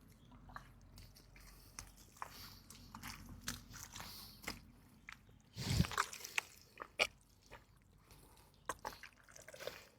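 Faint scattered clicks and taps of handling, with a louder brief rustle and thump about six seconds in.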